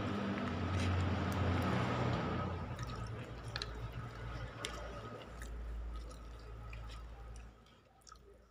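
Fingers squishing and kneading a handful of rice, fried noodles and sauce on a paper food wrapper, with small wet clicks. A low rumble underneath is loudest in the first couple of seconds and fades out near the end.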